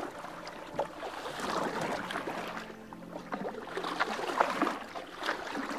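Wooden canoe paddle pushing and pulling through the water, with splashing and gurgling that swells twice and a scatter of light knocks and clicks.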